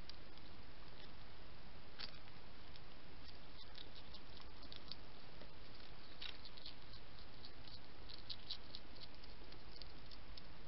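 European hedgehog chewing food, a run of small irregular clicks and crunches over a steady hiss.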